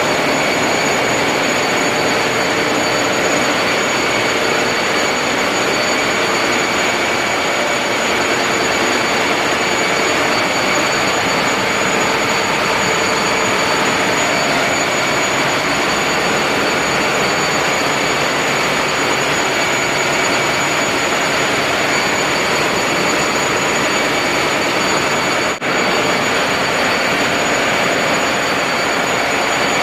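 Ship's engine-room machinery running: a loud, steady mechanical noise with a constant high whine over it. It briefly drops out once, about 25 seconds in.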